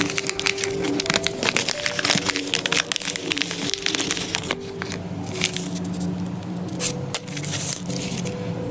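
Crinkling and rustling of a white mailer bag being handled, folded and smoothed by hand, with faint background music.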